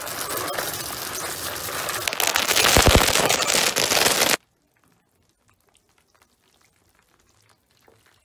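Dry cereal pouring from a box: a dense rattling crackle for about four seconds that stops suddenly, then near silence.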